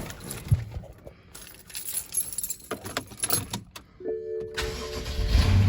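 Keys jangling for about four seconds, then a short steady tone, and the BMW N63 4.4-litre twin-turbo V8 starts and runs with a steady low sound. This is the first start after torn PCV valves, which had caused a vacuum leak and a misfire, were replaced.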